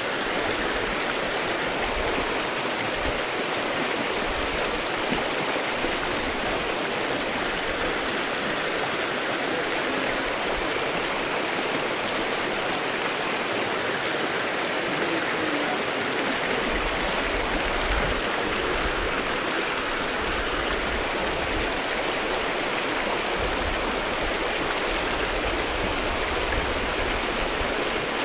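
Shallow mountain creek running over rocks: a steady rush and burble of flowing water, with patches of low rumble now and then in the second half.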